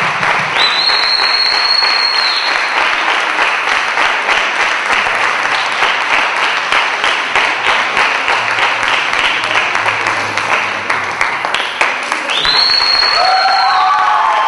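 Audience applauding steadily. Two high whistles cut through, one about half a second in lasting about two seconds, and another near the end. A few shouting voices join in near the end.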